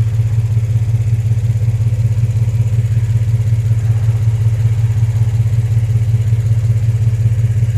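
2003 Infiniti G35's 3.5-litre V6 engine idling steadily, an even low rumble with no revving; the car was brought in misfiring with no power.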